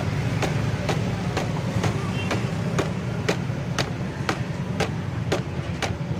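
A steady low machine hum with sharp clicks at an even pace of about two a second.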